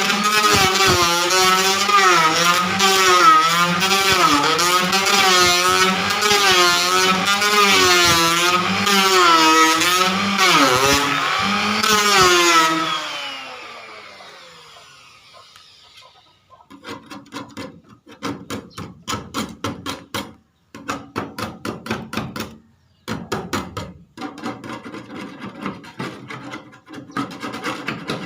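Electric hand planer running and cutting paint off wood, its motor pitch wavering up and down as the blades bite. About 12 seconds in it is switched off and winds down with a falling pitch. From about 17 seconds there are bursts of rapid scraping clicks with short pauses between them.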